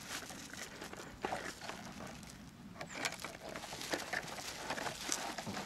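Crinkling and rustling of a clear plastic sleeve and bubble wrap as a wrapped model wagon is pushed into the tight sleeve, in irregular short crackles with a quieter moment in the middle.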